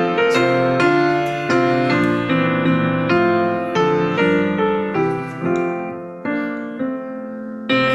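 Piano playing a slow hymn tune, struck chords changing about twice a second, with a louder chord near the end.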